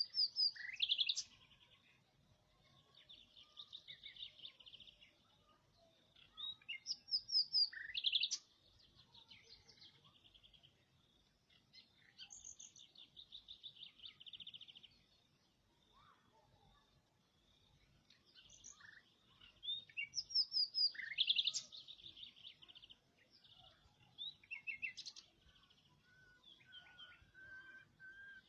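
A small songbird singing: phrases of rapid trills and quick up-and-down sweeping notes, repeated every few seconds with short pauses between. A steady, lower whistled note comes in near the end.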